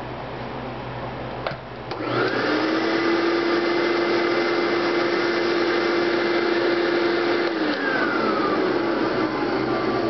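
Eureka Model 653 canister vacuum cleaner's motor. After a click about a second and a half in, it comes up to full speed with a loud, steady whine. Near the end the whine slides down in pitch while the rush of air goes on.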